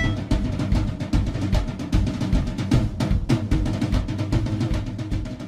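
Music: fast drumming on snare and bass drum, with little melody over it.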